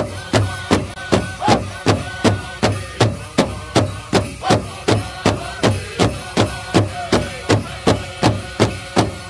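Music: a drum beating steadily, about three strokes a second, with a voice chanting over it in gliding tones.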